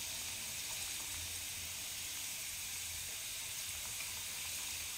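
Potato sticks sizzling steadily as they deep-fry in hot oil.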